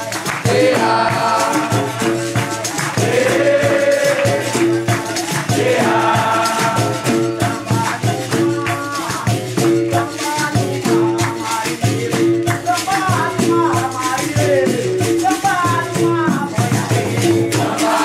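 Capoeira roda music: group call-and-response singing over a berimbau ensemble with pandeiro jingles and drumming keeping a steady, dense rhythm.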